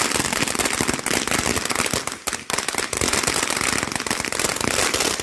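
Ground fountain firework spraying sparks, giving a dense, continuous crackle of rapid small pops, with a brief lull a little after two seconds in.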